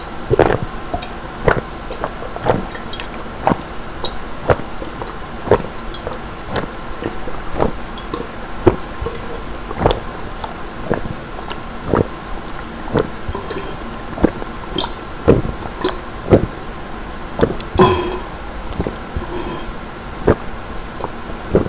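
A man gulping down drinkable yogurt from a pitcher in one continuous chug: loud swallows at a steady pace of about one a second, over a faint steady hum.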